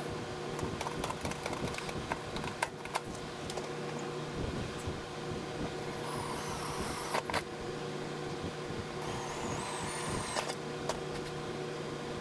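A small power tool whines in two short runs, each about a second long, a few seconds apart. Scattered sharp clicks and knocks of hand work on metal come between them, over a steady low hum.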